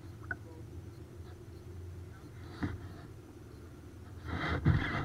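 Low, steady rumble of a kayak on the water, with a few light knocks from gear being handled; a louder rush of noise comes in near the end.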